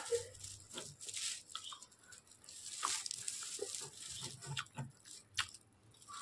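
Fingertips crinkling and scratching on a plastic sheet in short irregular crackles and clicks while picking up leftover bits of cooked Maggi noodles, with chewing and mouth sounds in between.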